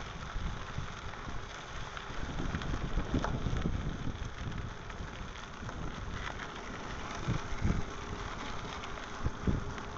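Bicycle and dog-trailer tyres rolling over a gravel path, a steady crunching hiss with scattered small clicks and rattles, over a low rumble of wind on the microphone.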